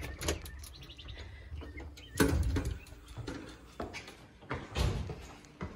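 Storm door handle and latch clicking as the door is opened, followed by a few louder knocks and thuds from the door and footsteps, about two seconds in and again near the end.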